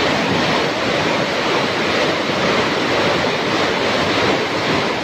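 Heavy rain pouring down steadily, drumming on a corrugated metal roof overhead.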